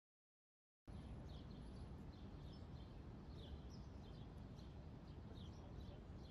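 Outdoor city street ambience that starts about a second in: a steady low rumble of traffic, with small birds giving repeated short, high chirps over it.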